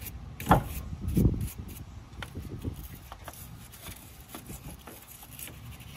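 Stiff brush scrubbing the rusty bearing bore of a steering knuckle, a run of short rubbing and scraping strokes, while cleaning it before a new wheel bearing goes in. Two louder knocks come about half a second and a second in.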